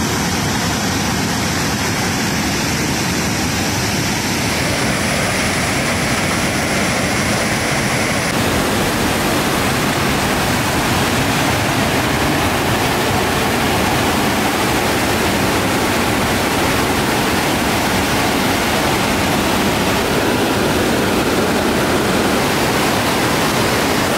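Swollen mountain stream in spate, muddy white water rushing over large boulders: a loud, steady rush of water heard from directly above the torrent.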